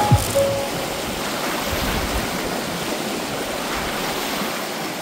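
Steady rush of lake waves washing on the shore. The last notes of background music end within the first second.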